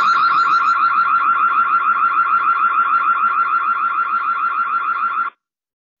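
Electronic alarm siren: one loud high tone warbling rapidly, about eight pulses a second, that cuts off abruptly about five seconds in.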